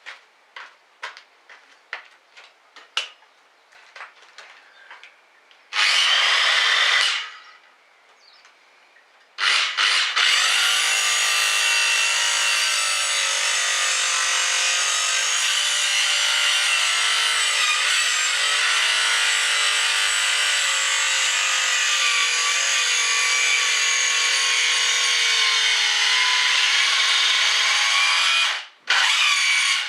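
A small motor-driven tool running steadily, with a steady whine, for about twenty seconds after a short first burst, then cutting off suddenly near the end. Light ticks come about twice a second before it starts.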